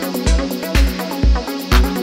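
Background electronic dance music with a steady four-on-the-floor kick drum at about two beats a second, and hi-hats ticking above it.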